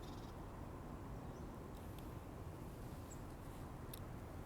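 Quiet room tone: a steady low background hum with two faint clicks, about two and four seconds in.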